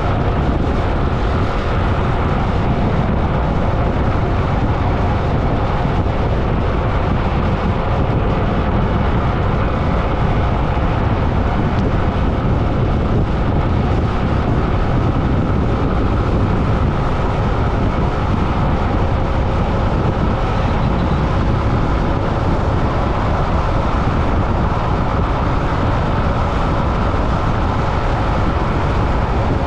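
Steady road noise of a vehicle moving at speed: an unbroken deep rumble with a few faint steady tones above it, holding at the same level throughout.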